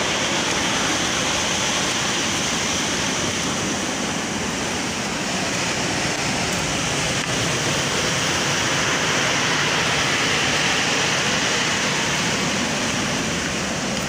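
Sea surf breaking on a rocky, pebbly shore: a steady, unbroken rush of waves.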